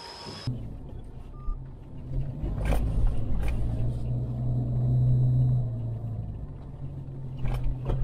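Pickup truck engine running as it drives over a rutted dirt road, heard from inside the cab, with a few sharp knocks from bumps. The engine drone grows louder from about two seconds in.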